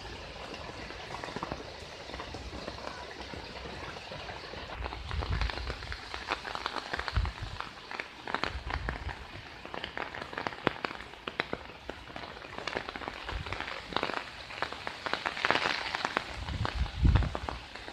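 Heavy rain falling on standing floodwater and foliage: a steady hiss with many sharp drop taps, which grow denser about five seconds in, and a few brief low thuds.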